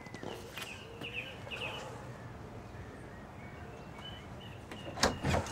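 Small birds chirping on and off over a low steady background, with two sharp knocks about five seconds in.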